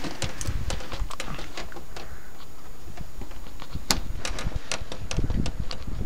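Irregular crunching clicks of footsteps in snow, over a low rumble.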